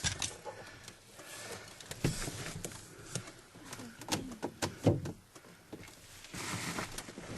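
Irregular scraping with scattered sharp clicks and knocks, like the sound of someone raking something. The noise is unexplained.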